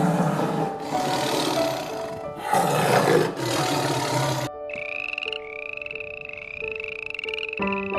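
Loud, rough roaring animal calls in several bursts for about four and a half seconds, then a high, rhythmic repeated animal call, about one and a half a second, over background music with a steady melody.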